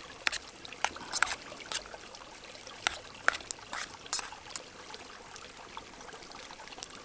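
A utensil stirring food in a metal camp pot, with irregular clicks and scrapes, over the faint steady trickle of a nearby river.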